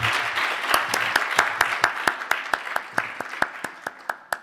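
Audience applause that thins out as it goes, leaving a run of sharp, regular claps, about four or five a second, standing out from the fading crowd.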